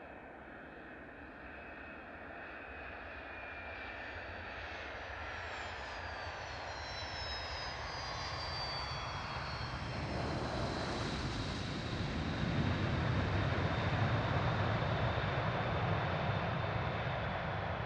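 Fokker 100 twin-engine jet landing: the turbofan whine sweeps down in pitch as it passes, then a low engine rumble builds and grows loud as it rolls out on the runway.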